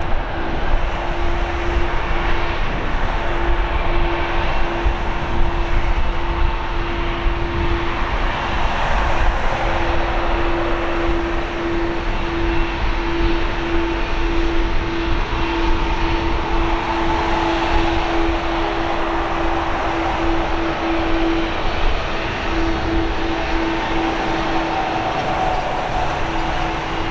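Boeing 777-200ER's twin jet engines running at low power as the airliner taxis after landing: a steady whine over a broad rushing noise.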